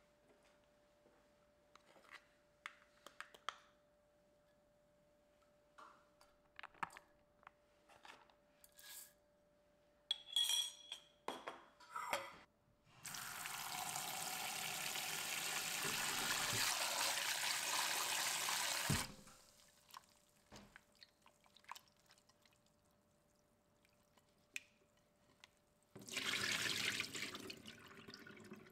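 Kitchen tap running for about six seconds into a glass bowl of cut cucumbers in a stainless-steel sink, then water tipped out of the bowl into the sink near the end. Before the tap, scattered light clicks and clinks of kitchenware, over a faint steady hum.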